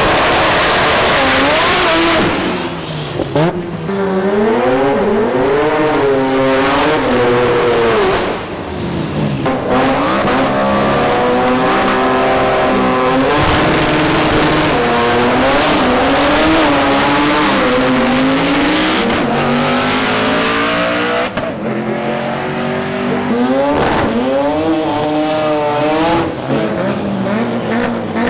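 Drag race cars revving hard and launching, their engine notes climbing and falling again and again across several clips, with some tire squeal.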